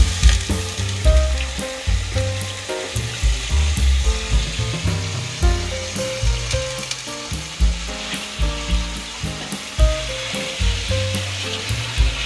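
Raw duck pieces being added to hot oil and spice paste in an iron karahi, sizzling and frying. Background music plays along.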